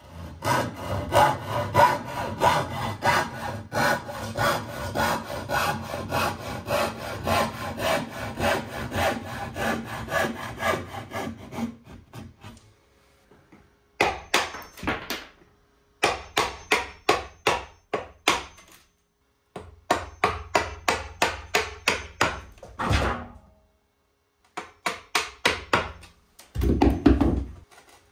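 A hand saw cutting wood in quick, even strokes for about twelve seconds. After that come several short runs of sharp blows from a claw hammer driving a wood chisel into the wooden sill.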